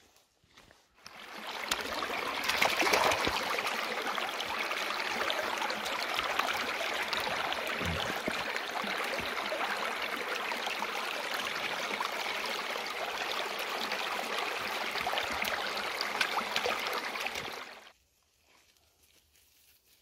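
Shallow stream running over rocks: a steady babble of water that starts about a second in and cuts off suddenly near the end.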